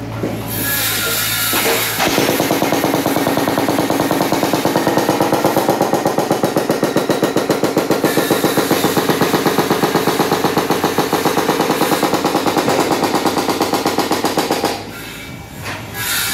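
Mini excavator's hydraulic breaker hammering concrete in a rapid, even rhythm over the excavator's engine hum, breaking up the pavement for a drain trench. The hammering starts about two seconds in, stops near the end, and starts again.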